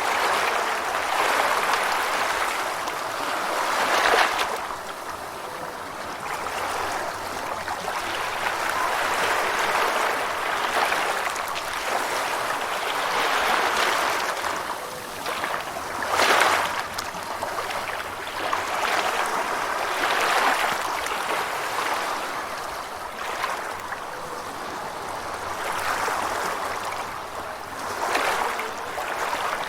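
Gentle ocean waves washing in, a steady rush of water that swells and ebbs every few seconds, with a sharper splash or break about 4 seconds in and again about 16 seconds in.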